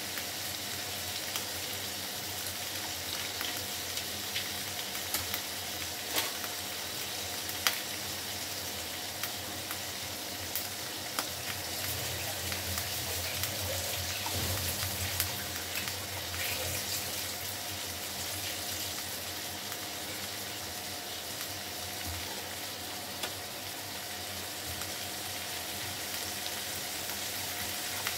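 Onion, green chilli and tomato wedges sizzling in hot oil in a frying pan: a steady hiss with occasional sharp pops.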